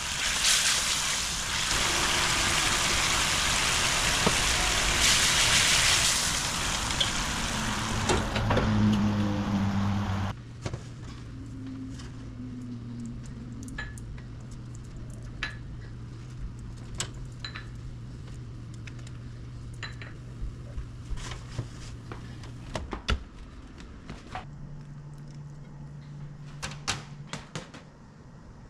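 Kitchen cooking sounds: a loud, steady hiss for about ten seconds that stops abruptly, then a low, steady hum with scattered light clinks and clicks.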